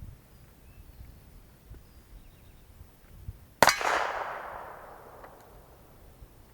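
A single gunshot about halfway through, its echo trailing away over about a second and a half.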